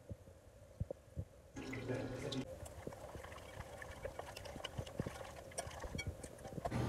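Water poured onto cornstarch in a bowl, then the starch-and-water slurry stirred, with faint scattered clicks. The sound is louder for about a second, from a second and a half in.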